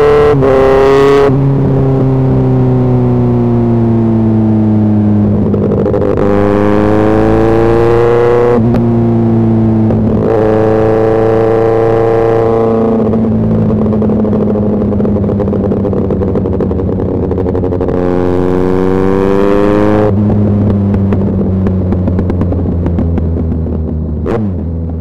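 Motorcycle engine, heard from the rider's position, pulling through the gears in traffic: its pitch climbs under throttle, breaks off at each gear change, and sinks slowly as the throttle is rolled off, several times over.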